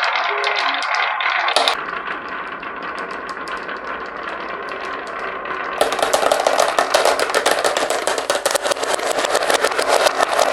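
Marbles and toy vehicles rolling down a wooden marble-run slope: a steady rolling rumble, then dense rapid clattering from about six seconds in.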